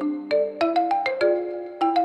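Background music: a bright melody of struck, ringing mallet-percussion notes, about three to four notes a second.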